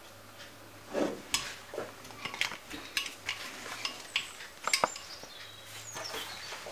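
Metal spoon clinking and scraping against bowls while scooping thick green chutney: a string of short, sharp clinks and knocks. The loudest come about a second in and again near five seconds in.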